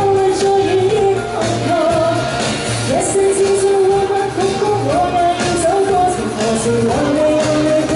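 A woman singing a Cantopop song live into a handheld microphone over a recorded backing track with a steady beat, amplified through a stage PA.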